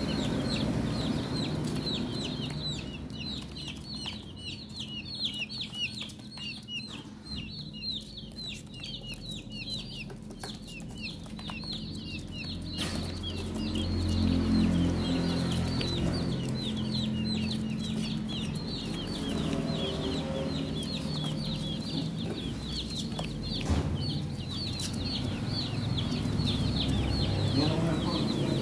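A group of young chicks peeping continuously: many rapid, high-pitched, downward-sliding chirps overlapping one another. A low hum runs underneath and grows louder about halfway through.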